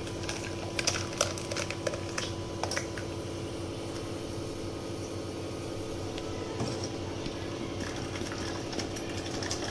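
Thick blended tomato pulp pouring from a steel pot into a steel mesh strainer, with a few light clinks and splashes in the first three seconds, over a steady low background hum.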